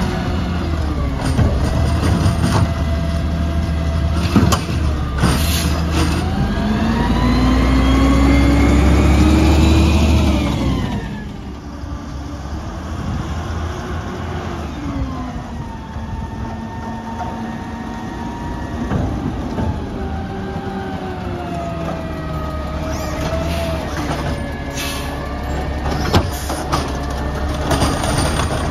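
Peterbilt 320 garbage truck's diesel engine running. It revs up with a rising whine for about four seconds, then drops away suddenly about eleven seconds in, and runs more quietly with slow rises and falls in pitch as the truck drives along. A few short sharp sounds come near the end.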